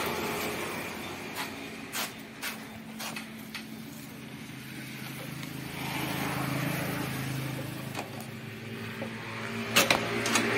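A low motor vehicle hum that swells and fades over a few seconds in the middle, with a few sharp clicks and knocks scattered through it.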